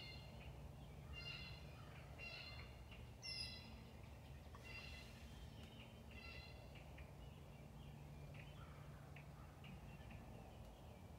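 Wild turkeys calling softly: short, faint notes repeated about every second or so, with one higher, louder note about three seconds in, growing sparser after about seven seconds.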